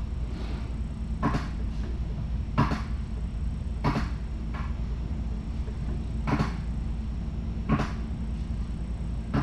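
Sharp clicks or knocks repeating about every second and a quarter, with fainter ones in between, over a steady low hum.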